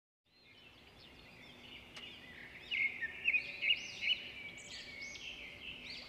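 Outdoor wetland ambience fading in: a steady high drone of insects with repeated rising-and-falling chirps over it, louder from about halfway.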